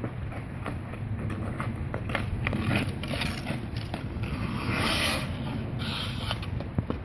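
Hockey skate blades scraping and carving across ice, with scattered sharp clicks of a stick handling a puck. A longer, louder scrape about five seconds in.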